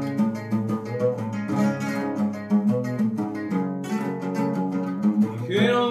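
A bandola played solo with rhythmic strummed and picked notes. A man's voice comes in near the end.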